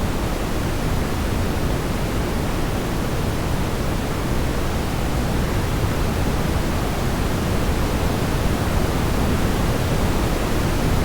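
Steady rushing outdoor noise, heaviest in the deep low end, with no breaks or changes.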